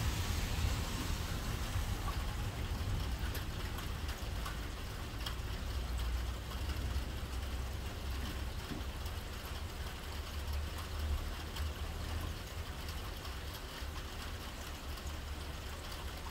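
Steady rain falling, with scattered raindrop ticks over a low steady rumble.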